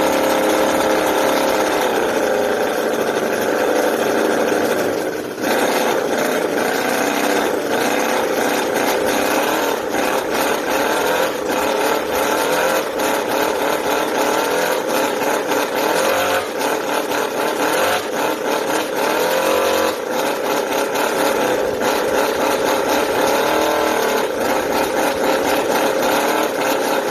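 Enjomor V8 scale model engine running loudly, its pitch rising and falling in short rev blips, with a brief dip in revs about five seconds in.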